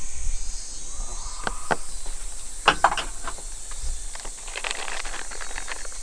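Crinkling of a clear plastic zip bag being handled, after a few sharp clicks and taps from handling a jig lure on a plastic tackle box. A steady, high-pitched insect chirring runs underneath.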